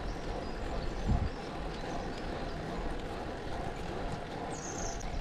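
Steady wind and road noise from a road bike climbing slowly on asphalt, with a single low thump about a second in.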